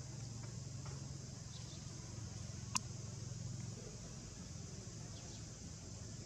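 Quiet outdoor ambience: a steady low hum with faint insect chirping, and one short sharp click a little under three seconds in.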